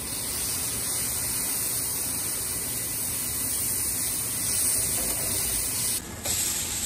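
Beef patties sizzling on a hot cast iron griddle, a steady hiss that dips briefly about six seconds in.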